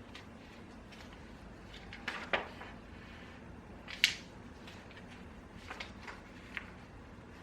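Scattered light clicks and taps of someone working at a desk, the sharpest about four seconds in, over a faint steady room hum.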